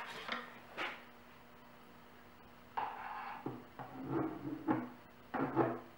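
A few light clicks, then plywood panels knocking, scraping and sliding against each other from about three seconds in as a star-shaped plywood centre piece is handled and set down into a wooden table top.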